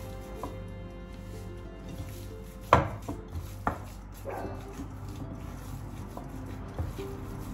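Hands kneading minced meat in a glass mixing bowl, with a few sharp knocks against the glass a little under three seconds in, the first the loudest, over soft background music.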